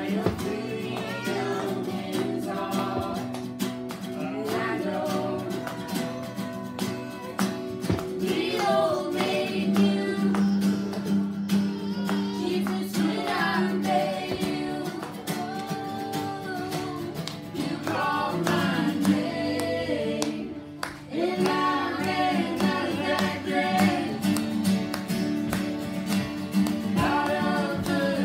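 A woman singing to two strummed acoustic guitars, with a brief break about two-thirds of the way through.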